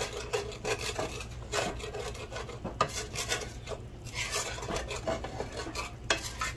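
Wooden spatula scraping and rubbing the bottom of a copper-coloured frying pan in quick, irregular strokes, several a second. It is working the browned chicken drippings loose in a little water to start a gravy.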